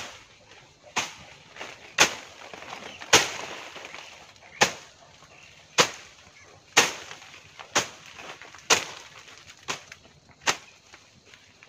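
Hand blade chopping into woody stems and branches, about a dozen sharp chops at roughly one a second.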